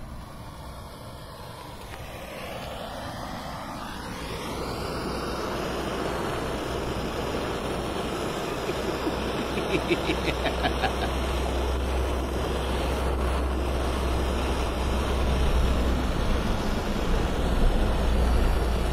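Handheld blowtorch burning, a steady rushing noise that sets in over the first few seconds and grows louder. A short run of quick crackles comes about halfway through as the flame plays over a plastic toy.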